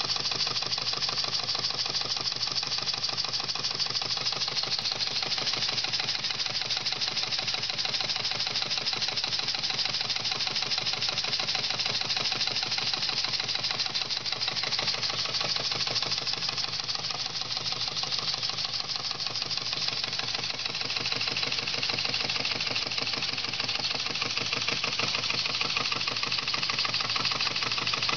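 Model steam engine running fast and steadily, with a rapid, even beat and a steady hiss of steam. It is working under load, belted to a small generator that lights bulbs, on steam at about 15 psi.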